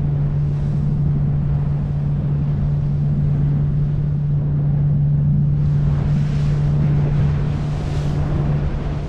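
Motorboat engine running at a steady cruising speed, a constant low drone, with wind buffeting the microphone and water rushing past the hull. The wind noise swells from about six seconds in.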